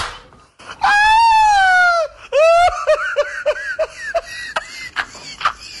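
A man laughing hard and high-pitched: a long shrieking squeal about a second in, then a run of rhythmic "ha-ha-ha" laughs, followed by a few sharp smacks near the end.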